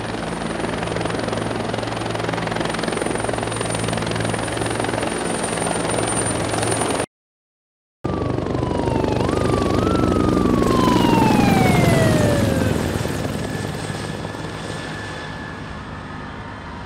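Helicopter flying overhead, its rotor and turbine running steadily. After a brief cut to silence about seven seconds in, it comes by louder with a whine falling in pitch as it passes, then fades as it flies away.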